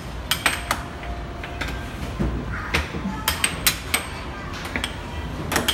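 Air hockey in play: mallets striking the plastic puck and the puck clacking off the table's rails. There are about a dozen sharp knocks at uneven intervals, over a steady low hum.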